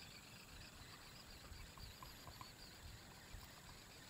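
Near silence: faint outdoor ambience with a few faint ticks.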